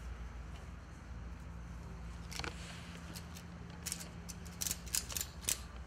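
Metal ratchet buckle on a tent tie-down strap clicking and rattling as the webbing is pulled through it by hand to take up slack. There is a single click about two seconds in, then a quick run of clicks in the second half.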